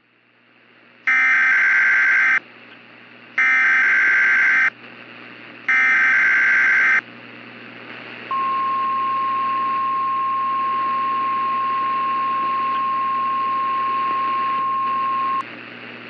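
NOAA Weather Radio alert tones over a radio hiss that fades in: three SAME header data bursts, each a buzzing warble about a second and a half long, then the steady 1050 Hz warning alarm tone held for about seven seconds. The sequence signals that a warning broadcast, here a severe thunderstorm warning, follows.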